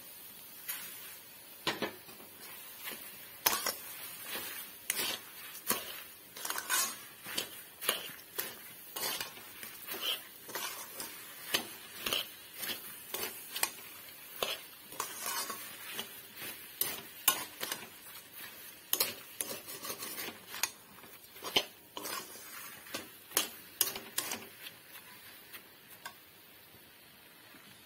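A metal spoon knocking and scraping against an aluminium kadai as it stirs sugar into a pan of jujubes, with irregular clinks about one or two a second that stop near the end.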